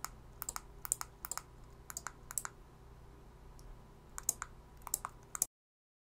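Sharp clicks, several in quick pairs, as the buttons of a 433 MHz key-fob remote are pressed and the KR1204 relay module's small 12 V relays switch on and off. The sound cuts off abruptly near the end.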